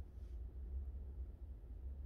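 Faint, uneven low rumble of wind buffeting the microphone, with no distinct sound event.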